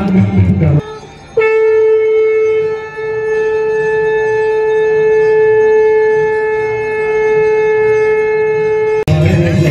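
A conch shell (shankh) blown in one long steady note of about seven seconds, which cuts off suddenly. Devotional singing with music stops just before it and starts again right after.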